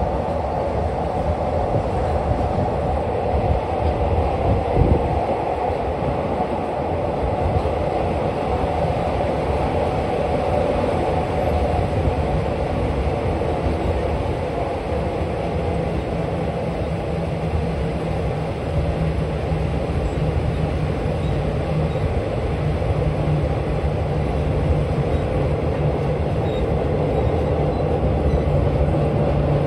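Diesel-hauled passenger train running along the track, heard from an open window of one of its carriages: a steady rumble of wheels on rail. A low steady hum comes in about halfway through.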